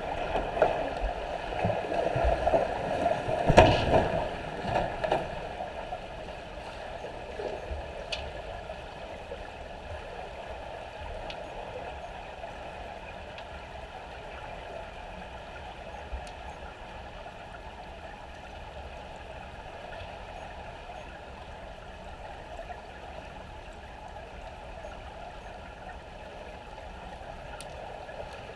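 Pool water heard from underwater: the churning and splashing of swimmers' strokes and kicks, with loud surges in the first five seconds, strongest about three and a half seconds in. After that it settles into a steadier, quieter bubbling wash with a faint steady hum.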